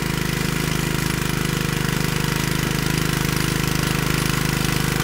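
The single-cylinder 8 horsepower Kohler Magnum engine of a Troy-Bilt Horse tiller, converted to run on propane, runs steadily under load as the rear tines churn through turf and soil.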